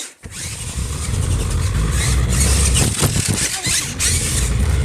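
Remote-control monster truck driving, a steady noisy rumble with hiss from its electric motor and wheels on the ground.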